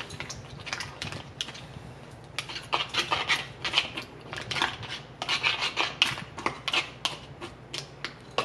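Green plastic utensil tapping and scraping in a plastic canning funnel set on a glass mason jar, pushing chicken and mushroom pieces down into the jar: a run of irregular short clicks and scrapes.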